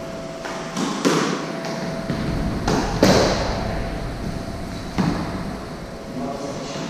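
Squash ball being struck by rackets and smacking off the walls during a rally, about five sharp hits that echo around the enclosed court.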